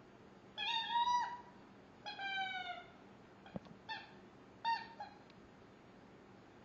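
Rubber squeaker in an Angry Birds Pig General chew toy squeaking as a puppy bites down on it. There are four squeaks: two longer ones, the second falling slightly in pitch, then two short ones.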